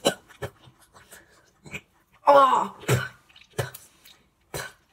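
A boy gagging and coughing on a mouthful of boiled egg eaten with its shell: a series of short coughs and sharp breaths, with one longer voiced retch about halfway through. He is on the point of vomiting.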